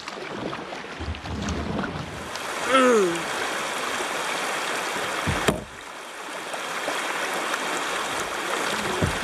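Shallow river water rushing over rocks in a riffle around a kayak's bow, a steady hiss. There is a brief vocal sound about three seconds in and one sharp knock about halfway through.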